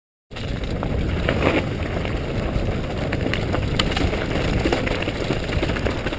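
Mountain bike riding fast down a rough dirt trail: a steady rumble of tyres over dirt and stones, and wind on the bike-mounted camera's microphone, with a few sharp knocks and rattles from the bike over rocks. It starts abruptly after a moment of silence.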